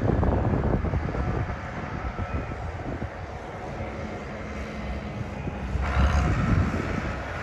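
Tractor engines running as they approach along a lane, a steady drone that grows louder about six seconds in as they get nearer.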